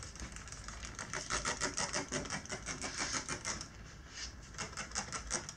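Tire-mounting lubricant being applied to the tire bead and rim, giving a rapid run of light wet ticks, about six a second, that pauses briefly about three and a half seconds in and then resumes.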